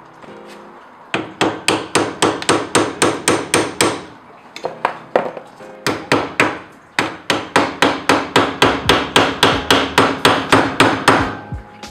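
Hammer striking the bent-over metal lock-washer tab on a BMW E30's outer tie rod, where it threads into the steering rack, to flatten it back so the tie rod can be unscrewed. Rapid blows, about five a second, come in two runs with a short pause about four seconds in.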